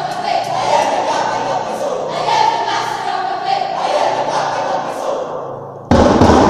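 A speech choir of high-school students voicing a passage in unison, many young voices together, fading near the end. About six seconds in, a sudden loud thump.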